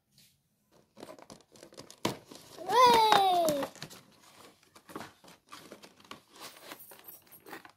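Cardboard and plastic packaging of a toy airplane box crinkling and tearing as it is opened by hand, in many small crackles. About three seconds in comes one brief, loud, falling squeal.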